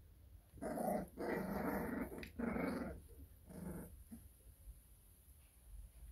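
American Bully puppies growling as they play-fight, four growls over about three seconds, the second the longest.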